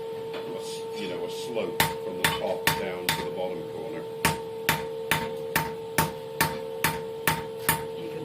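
Hand hammer striking hot high carbon steel bar stock on an anvil, knocking down a corner of the bar. After a short lull in the first second or so, the blows come evenly at about two to three a second, over a steady hum.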